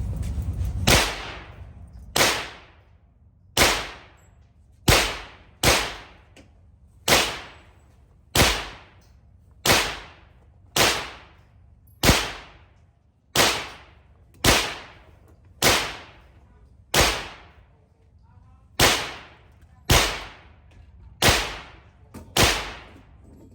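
9mm handgun fired in slow, evenly paced single shots, about eighteen of them, roughly one every second and a quarter, each crack followed by a short fading ring.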